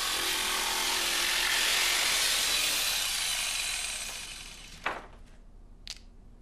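Electric jigsaw cutting through a laminate floorboard, the blade running steadily for about four seconds and then winding down. Two light knocks follow near the end.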